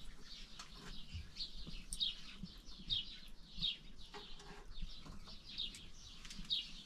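Small birds chirping: a run of short, high notes, each falling in pitch, repeating about one or two a second.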